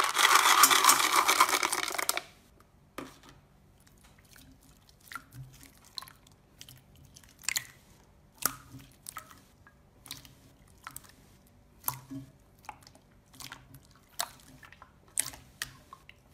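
Clear slime with white foam pieces worked by hand, squeezed and pressed in a bowl, giving scattered sticky pops and clicks. A loud dense crackle fills the first two seconds, as the foam pieces are tipped in.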